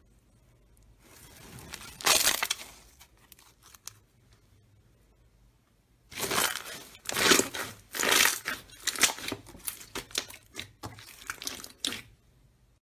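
Slime being squished and pressed by hand, giving irregular squelching, popping noises: one stretch about a second in, then a run of quick squishes from about six seconds in until near the end.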